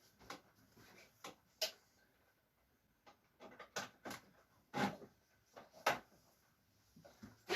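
A few scattered light knocks and clicks with brief rubbing, as of items being handled and set down.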